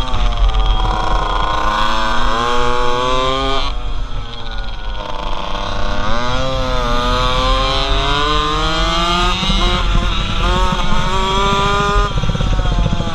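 Small motorcycle engine heard from the rider's helmet, revving up and falling off again and again as it is ridden round a tight track, with low wind rumble on the microphone. The revs drop away about four seconds in and climb again about a second later.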